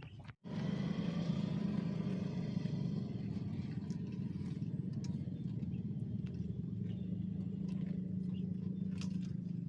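A motor running steadily with a low drone, starting abruptly about half a second in.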